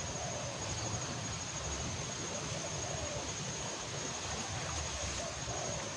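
River water flowing, a steady rushing noise, with a thin steady high tone running over it.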